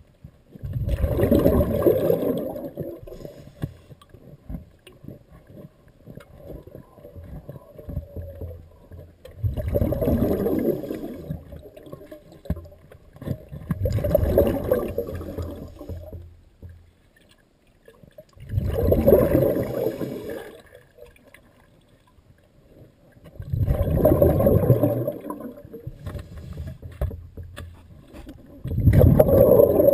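Scuba diver's exhaled bubbles rushing out of the regulator, heard underwater: a loud burst of about two seconds every few seconds, six in all, with quieter breaths between.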